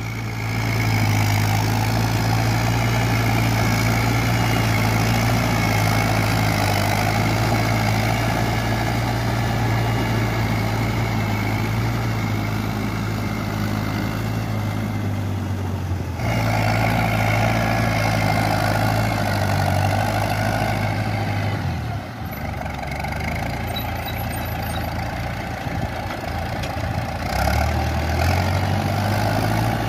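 A Shibaura SD3000 tractor, re-engined with a combine harvester's engine, runs steadily under load as it drags cage wheels and a rotary tiller through a flooded rice paddy. The engine sound breaks off abruptly about halfway and resumes.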